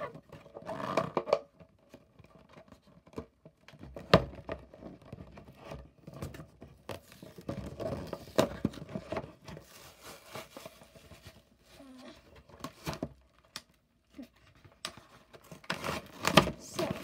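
Clear plastic and cardboard toy packaging being handled and pulled open, crinkling and tearing with many irregular small clicks, and a few sharper knocks about 4, 8 and 16 seconds in.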